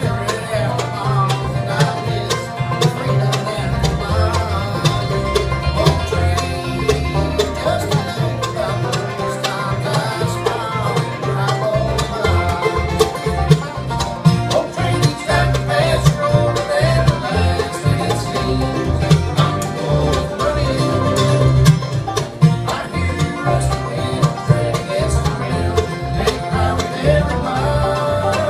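Live bluegrass band playing: a five-string banjo, mandolin, acoustic guitars and an upright bass.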